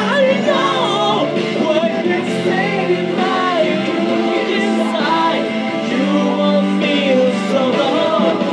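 A man sings a rock ballad over instrumental accompaniment, his voice sliding and bending between notes above steady held chords.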